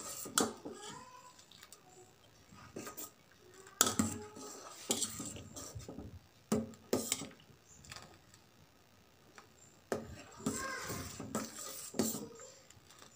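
Metal spoon stirring thick boiling semiya-sago payasam in a stainless steel pot, clinking and scraping against the pot's sides and bottom. The sharp clinks come irregularly, a second or more apart.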